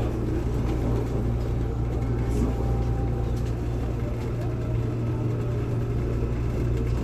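Série C electric commuter train, unit C53, running with a steady low drone.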